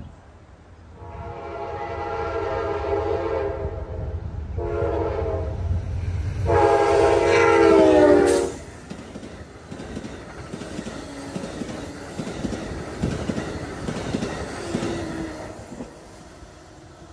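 Amtrak GE P42DC locomotive sounding its horn in three blasts as it reaches the grade crossing, the third the loudest and dropping in pitch as the locomotive goes past. Then the passenger cars' wheels clack steadily over the rails as the train runs by, fading near the end.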